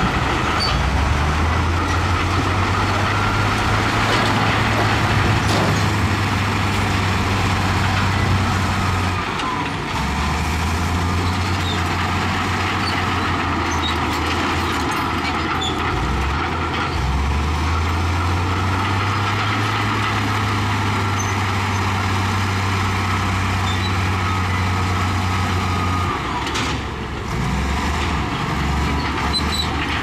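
Heavy diesel earthmoving machinery at work. The engine runs loudly under varying load, and its note drops and picks up again several times.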